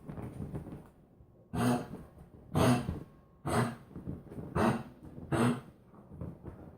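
A pet's harsh, honking hacking coughs: five in a row, about one a second, with softer breathing before and between them.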